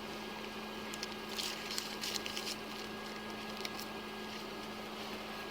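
Low steady hum with faint rustling and a few light clicks about one to two and a half seconds in.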